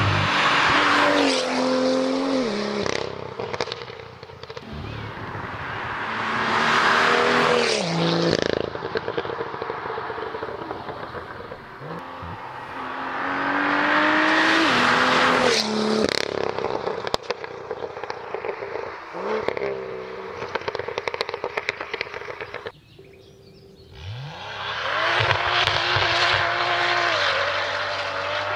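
BMW M2 with a 450 hp PP Performance tune and an Fi aftermarket exhaust, its turbocharged straight-six pulling hard four times. Each time the engine note climbs through the revs and steps down at the upshifts, and between the pulls the exhaust crackles and pops off the throttle.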